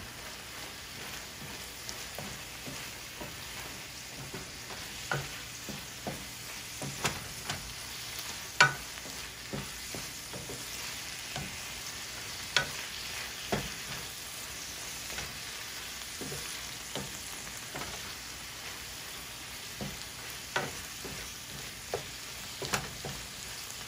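Tofu, spinach and green chillies frying in a pan with a steady sizzle, while a wooden spatula stirs and scrapes through them, knocking against the pan now and then, most sharply about nine seconds in.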